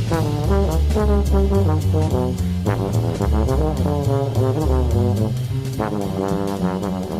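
Jazz trombone quintet playing: a trombone plays a line of quick, changing notes over walking acoustic bass, with cymbal strokes from the drum kit keeping time.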